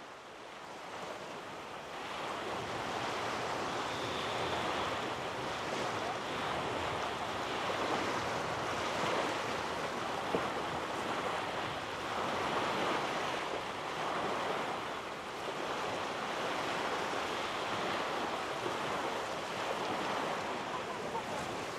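Small sea waves washing ashore, a steady hiss of surf that swells and eases every few seconds, with some wind.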